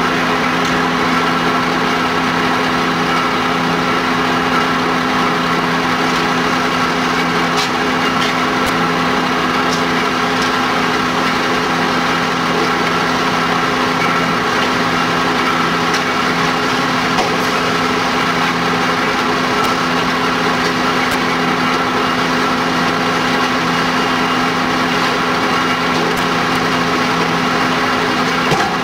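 Fire engine's diesel engine running steadily at a constant speed, an even hum with a few faint clicks over it.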